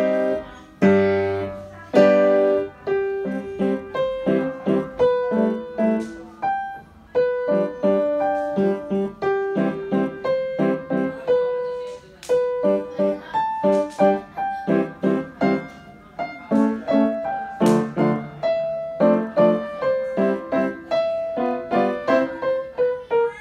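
A child playing a Yamaha upright piano with both hands: short repeated chords under a melody line, the notes following in quick succession.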